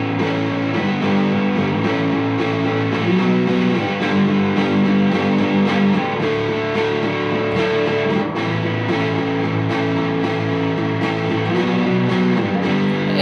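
Electric guitar played alone through a small amplifier in an instrumental break of a song, held chords ringing and changing every second or two.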